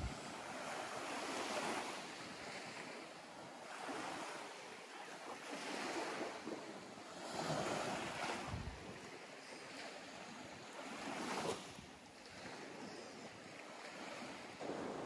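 Small Baltic Sea waves breaking and washing up the shore, swelling and fading every few seconds.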